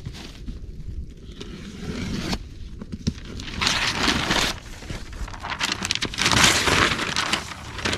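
A cardboard shipping box being forced and torn open by hand: rustling, crinkling and scraping of card, with two longer ripping tears, one about halfway through and a louder one a little later.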